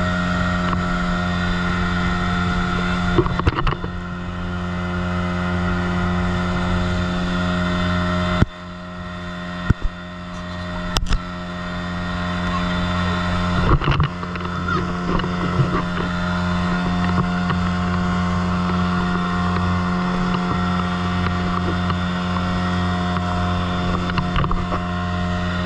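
Motorboat engine running at a steady pitch, a constant drone over the wash of water along the hull. Its loudness dips about eight seconds in and builds back, with a few sharp knocks soon after.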